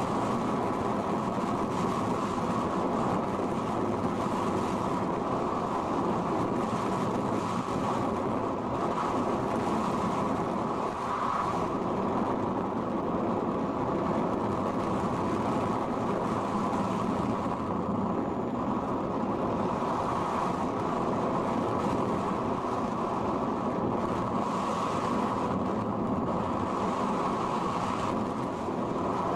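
Steady rushing of air over the RC sailplane's onboard camera as it glides, even throughout with no engine note and only a brief dip in level about eleven seconds in.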